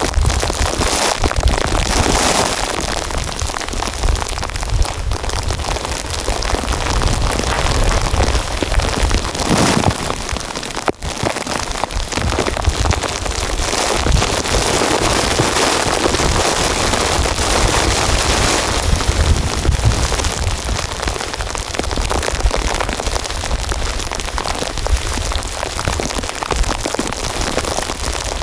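Heavy, steady pattering of storm precipitation, like rain, with a low rumble underneath. The sound drops out briefly about eleven seconds in.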